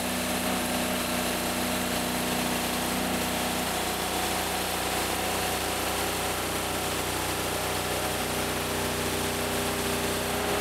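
Gasoline engine of a portable band sawmill running steadily under load as the band blade cuts along a pine cant, an even engine hum with a wide hiss over it.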